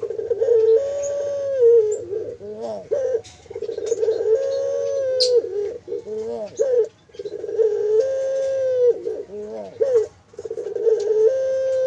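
Puter (domestic Barbary dove) cooing: three drawn-out phrases, each a long held coo followed by a short wavering, bubbling tail.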